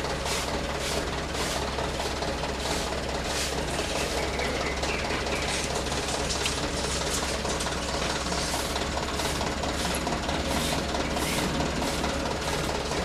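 Road-works machine engine running steadily, with a regular clatter about twice a second.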